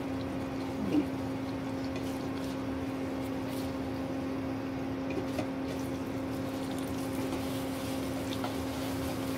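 Beaten eggs frying in hot oil in a non-stick pan: a steady sizzle, with a spatula now and then ticking and scraping against the pan, over a steady low hum.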